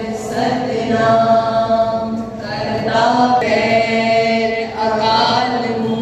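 A group of voices singing a devotional chant in unison, with long held notes that change pitch every second or so.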